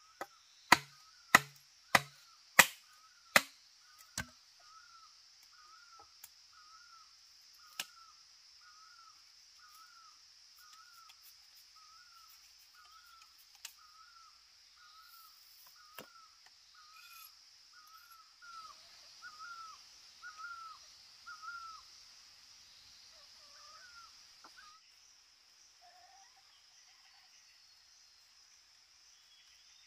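Six sharp chops in quick succession, a blade striking wood, then a few scattered knocks. Under them, a steady high insect buzz and a short hooked call repeated a little over once a second.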